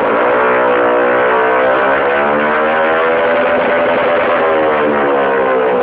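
Gilera Runner scooter engine through a MIVV exhaust with its silencer insert removed, revved up and held at high revs, its pitch climbing over the first few seconds and then sinking slowly back down near the end.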